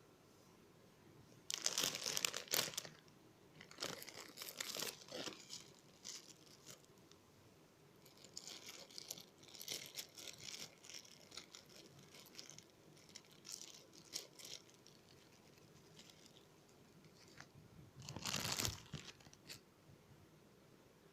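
Crinkling, rustling handling noise in irregular bursts, loudest about two seconds in and again near the end, as something crinkly is squeezed and handled by hand.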